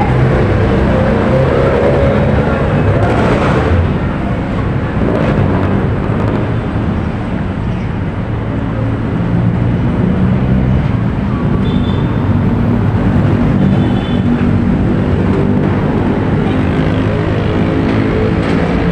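Busy city street traffic: engines of motor tricycles and cars running steadily close by.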